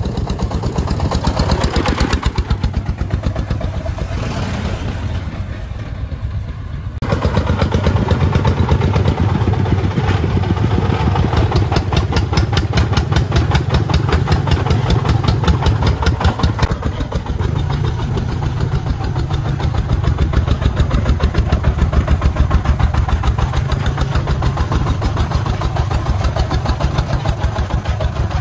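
Công nông three-wheeled farm truck's 24-horsepower single-cylinder diesel engine chugging with a rapid, even beat as it hauls a load of sand. It grows louder and closer from about seven seconds in.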